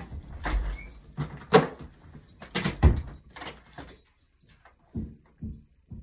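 Rustling, shuffling and knocking from someone moving about close to the phone, with a few heavy thuds. Near the end comes a run of soft, dull thumps about two a second.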